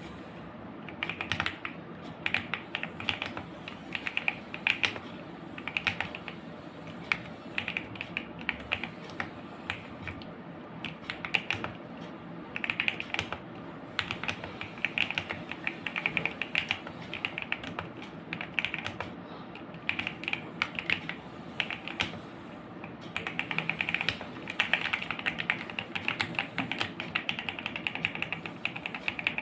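Typing on an Akko ACR64 mechanical keyboard with lubed and filmed Akko Jelly Black linear switches: runs of quick keystrokes with short pauses, turning to fast continuous typing in the last few seconds.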